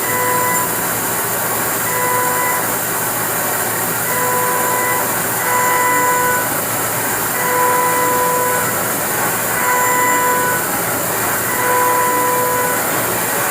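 Five-axis CNC milling machine finishing a part with a barrel cutter: a steady hiss of cutting, with a pitched tone that sounds and stops again every second or two.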